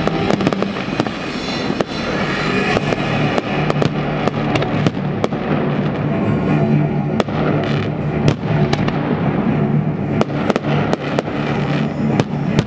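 Aerial firework shells bursting one after another, with many sharp bangs and crackles, over music with steady low notes.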